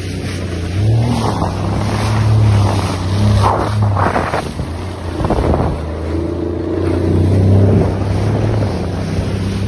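Jet ski engine running at speed with a steady drone, over the rush and splash of spray as the hull cuts through the waves. Wind buffets the microphone.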